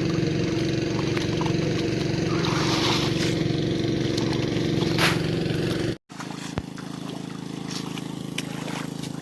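Small engine running steadily at an even idle-like speed. About six seconds in, it cuts off abruptly and comes back quieter, with less of its low rumble.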